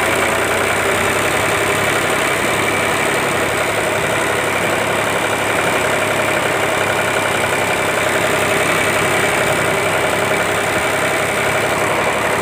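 Steady engine running note with a constant faint whine, unchanging throughout.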